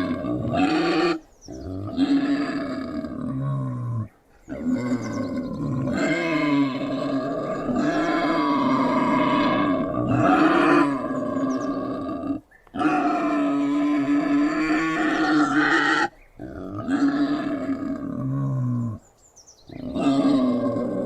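Wild boar sound effect: a run of long, pitched grunts, each lasting a few seconds, separated by five short pauses.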